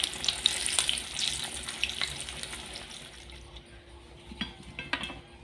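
Food sizzling and crackling in hot oil in a pan, fading away after about three seconds, with a few light clicks near the end.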